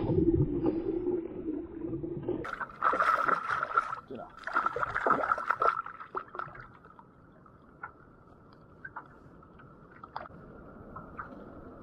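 Water splashing and sloshing beside a kayak as a hooked snapper is reeled to the side and lifted out. The splashing is loudest in the first six seconds, then it turns quieter, with a few light ticks.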